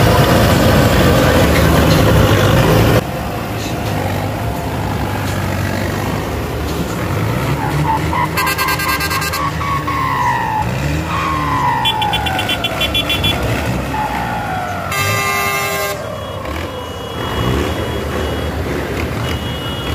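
Tractor diesel engines running, loud for the first few seconds and then dropping suddenly to a lower drone. Over them, from about eight seconds in, several short held horn blasts and repeated falling siren-like horn whoops sound.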